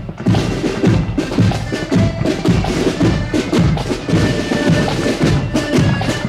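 Accordion band playing a march: accordions carrying the tune over bass drum and snare drums, with a steady drum beat about twice a second.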